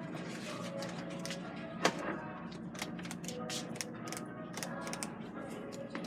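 Faint background music with many scattered light clicks and one sharp knock about two seconds in.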